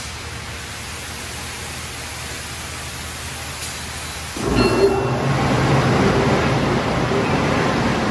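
Washworld Razor touchless car wash spraying: a steady hiss of water, then about four seconds in a sudden, much louder rush as the rotating spray arm's jets come around onto the car.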